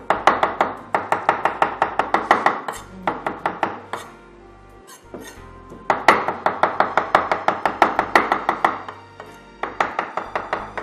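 Chef's knife rapidly mincing grilled catfish flesh on a wooden cutting board: quick, even chopping strikes in three runs, with a pause of about three seconds after the first run.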